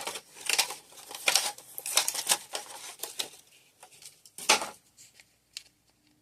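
Small plastic toy pieces being handled and set down: irregular clicks and light rattles, with one louder knock about four and a half seconds in.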